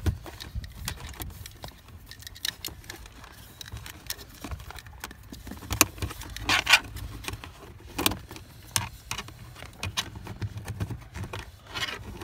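Hands working electrical cable into a car's plastic footwell trim panel: irregular small clicks, taps and scrapes of wire and plastic, with a few louder knocks past the middle and near the end, over a low steady hum.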